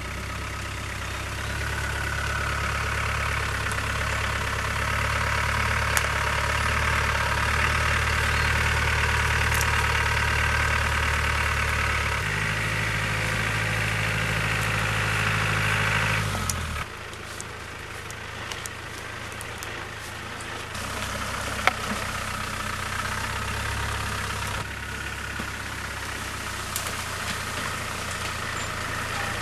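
Land Rover Discovery's 200Tdi turbodiesel engine running at low revs as the vehicle crawls along a rutted, tilted dirt track. The note builds, drops abruptly a little past halfway, then carries on more quietly.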